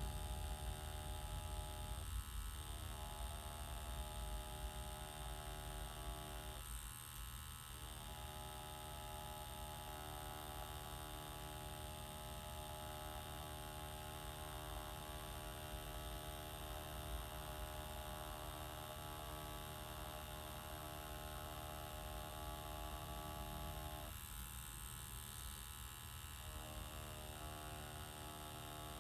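Tattoo machine running steadily, a constant electric hum, as it lines a design on practice skin.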